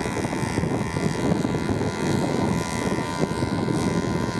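Motorcycle engines running steadily in road traffic, heard from a moving vehicle: a steady high engine whine over rumbling road and wind noise.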